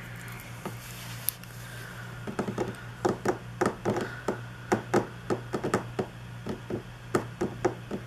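Quick, irregular light taps and clicks, a few a second, from hands handling planner and sticker supplies on a desk; they start about two seconds in, over a low steady hum.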